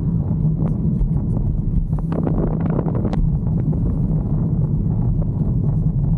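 Wind buffeting the microphone during a ride, over a steady low drone from the moving vehicle, with a few light clicks and knocks.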